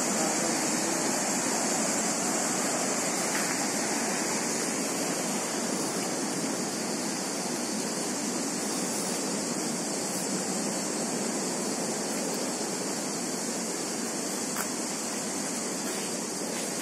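Steady rushing of flowing water, an even hiss-like wash that slowly fades.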